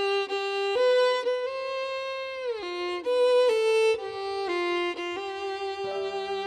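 Background music: a solo violin plays a slow melody of held notes, sliding down once partway through, with a lower accompanying line joining near the end.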